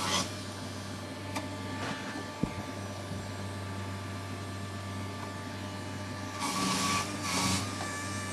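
Electric juicer running with a steady motor hum as fruit is fed through it, with a louder rasping spell about six and a half seconds in.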